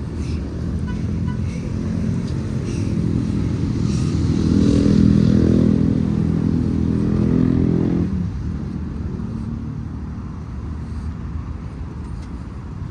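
Vehicle engine and road rumble while driving. The engine note grows louder from about two seconds in, peaks around five seconds and eases off about eight seconds in.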